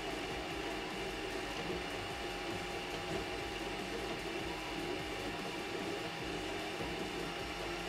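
Geeetech MeCreator 2 3D printer running mid-print: a steady mechanical whir and hum from its fans and moving print head.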